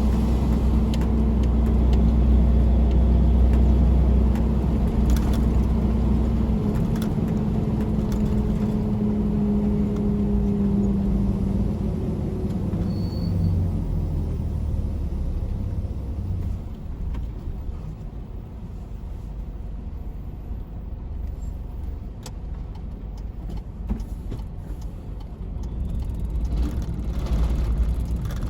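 Tractor-trailer's diesel engine running with a steady low drone that eases off and gets quieter about halfway through.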